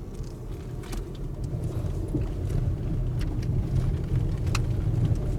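Car engine and road noise heard from inside the cabin while driving slowly on a village road: a steady low rumble that grows louder over the first couple of seconds, with a few small clicks and rattles.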